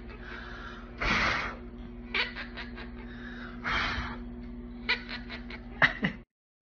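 Monk parakeet making a few short breathy hisses and quick runs of sharp clicks over a low steady hum. The sound cuts off suddenly near the end.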